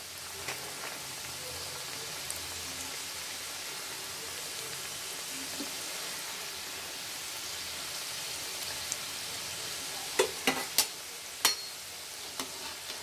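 Gujia pastries deep-frying in refined oil in an aluminium kadhai: a steady sizzle, with a few sharp clicks near the end.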